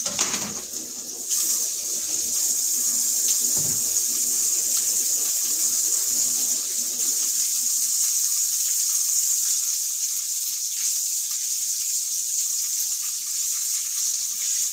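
Kitchen sink tap running steadily while hands are washed under it, turned on about a second in. There are a couple of short knocks near the start.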